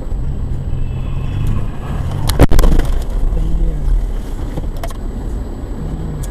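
Car engine and road noise as picked up by a dashcam, with a single loud sharp bang about two and a half seconds in.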